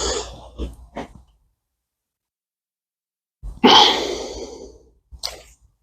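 A man's loud breathy sigh, fading out over about a second and a half, a little over halfway through, with a short breath and a couple of small ticks near the start and another brief breath near the end.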